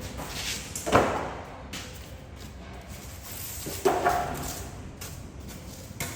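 Two loud thumps about three seconds apart, with scraping and handling noise between, as packaging is pulled off a delivered item.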